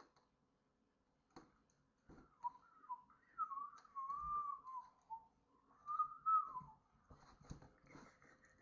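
A person whistling a short wandering tune, starting about two seconds in and stopping near seven seconds, with a few faint clicks around it.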